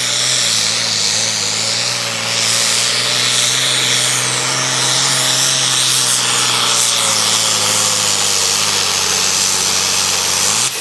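Turbocharged International Harvester diesel pulling tractor at full throttle, dragging a weight-transfer sled. The engine note holds loud and steady, then falls slowly lower under the load, sweeps up briefly near the end and cuts off sharply.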